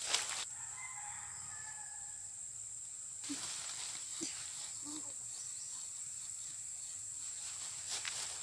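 Quiet rural outdoor ambience with a steady high insect drone; a few faint, short low calls come about three, four and five seconds in.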